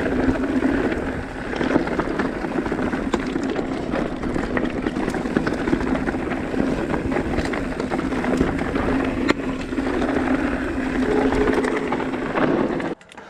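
Mountain bike riding along a rocky dirt trail: steady tyre and trail noise with many small rattles and clicks from the bike. It cuts off suddenly near the end.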